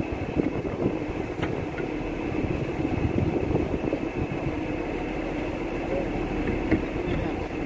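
A fishing boat's diesel engine running steadily at low revs, a continuous low rumble with a steady hum.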